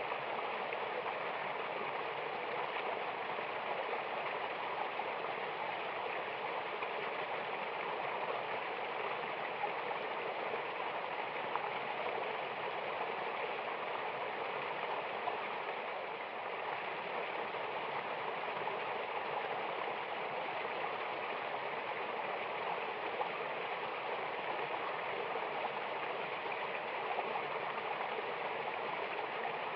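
Mountain river water rushing over rocks, a steady, even splashing hiss with no pauses.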